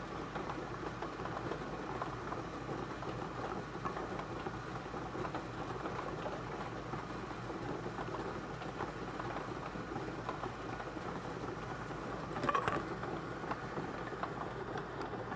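Bingo ball blower running: a steady rush of air with the balls tumbling inside it, and a brief louder sound about twelve seconds in as the next ball comes up.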